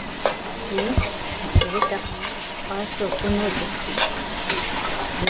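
A metal spatula stirring and scraping food in a wok, with clinks against the pan several times over a steady sizzle of frying.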